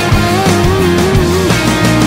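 Loud rock music with guitar; one held note wavers in pitch for about a second.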